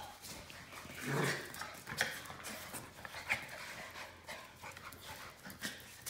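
Shiba Inu puppies and a small dog playing: panting and scuffling, with scattered sharp clicks of paws on a concrete floor and a louder scuffle about a second in.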